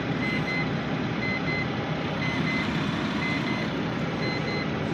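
Volvo FH12 truck's D12 diesel engine idling steadily, heard from inside the cab, with a short electronic beep repeating about once a second.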